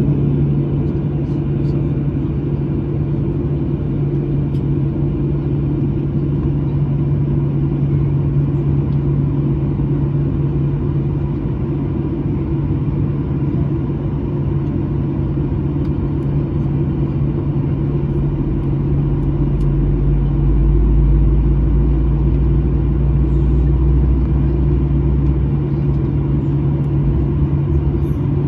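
Steady low rumble and hum in the cabin of a Boeing 737-900ER on the ground after pushback. A deeper rumble swells for about six seconds a little past the middle, then eases back.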